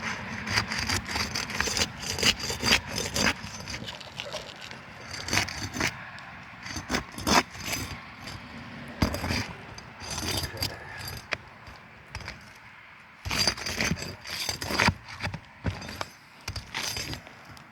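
Hand tools scraping, clicking and knocking against asphalt roof shingles in irregular runs with short pauses, as shingles are pried loose from the roof deck.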